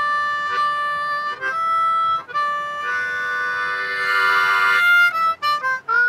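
Diatonic blues harmonica played solo in a slow blues riff. Held single draw notes come first, then a three-note draw chord on holes 4, 5 and 6 held for about two seconds. A quick run of short notes follows, ending with a note scooped up into the 3 draw.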